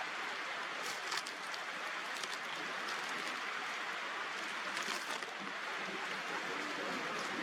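Steady rain falling: an even hiss with a few sharper drops striking nearby surfaces.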